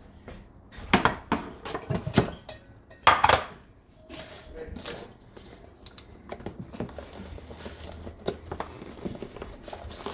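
A spatula knocking and scraping in a skillet as thick pot pie filling is stirred, with several sharp knocks in the first few seconds and softer clicks after.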